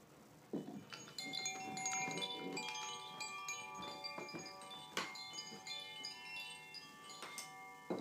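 Metal chimes ringing, several clear tones struck together and left to ring on, with fresh strikes about half a second in, at about five seconds and just past seven seconds.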